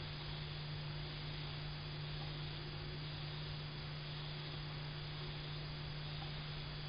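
Steady low electrical hum over a faint even hiss.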